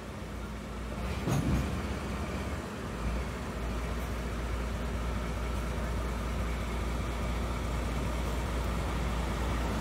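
DE10 diesel locomotive's engine running steadily at a standstill, a low even rumble that grows a little louder toward the end. A short louder noise stands out about one and a half seconds in.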